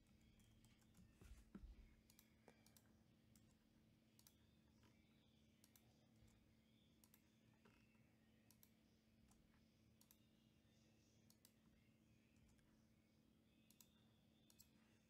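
Faint, scattered clicks of a computer keyboard and mouse over a low steady hum, with a soft thump about a second and a half in.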